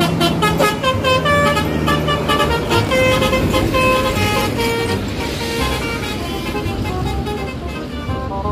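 Indonesian 'telolet' bus horn: a set of multi-tone air horns playing a quick stepping melody, over the low rumble of a running engine.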